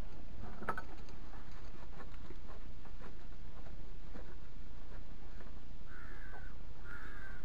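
A bird calls twice, about a second apart, near the end, over faint scattered knocks and handling noises.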